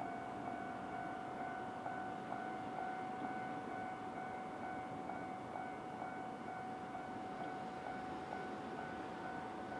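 Japanese railway level crossing's electronic warning bell ringing steadily, a continuous ringing tone over faint street background.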